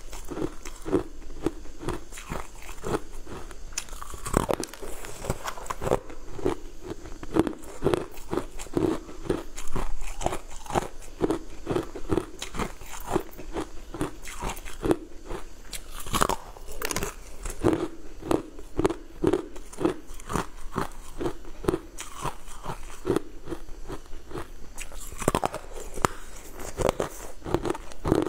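A person biting and chewing frozen ice blocks dusted with powdered sugar: a steady run of crisp crunches and chewing.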